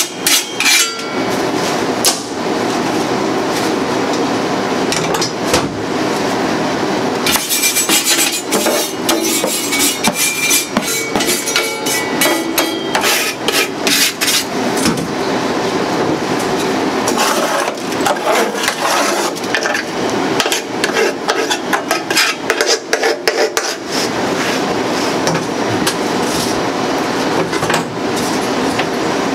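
Metal grill bars and burner parts inside a commercial charbroiler being scrubbed and knocked about by hand: continual metallic scraping with frequent clanks and knocks as grease residue is worked off.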